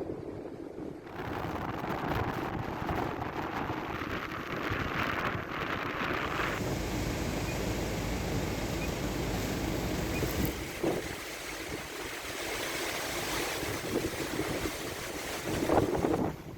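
Hurricane-force wind blowing with surf, the wind buffeting the microphone. The sound changes abruptly about a second in and again around six seconds in, and there is a louder gust near the end.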